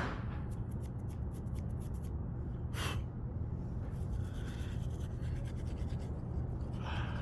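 A comb scratching through hair in runs of quick fine strokes, with one louder rasp about three seconds in, over a steady low hum.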